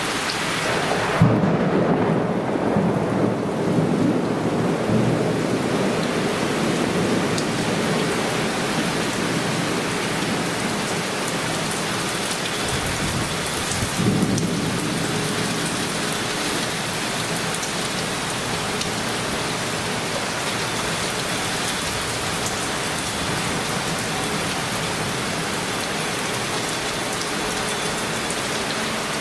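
Heavy downpour of a sudden summer cloudburst falling steadily, with a sharp thunderclap about a second in that rumbles on for several seconds, and a second, shorter roll of thunder about halfway through.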